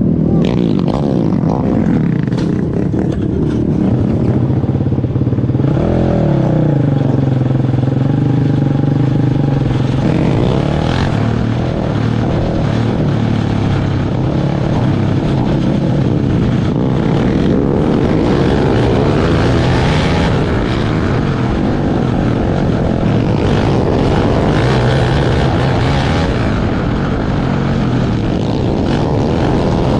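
Open 500 outlaw kart engine running hard, its pitch rising and falling with the throttle, with one sharp rise and fall about six seconds in.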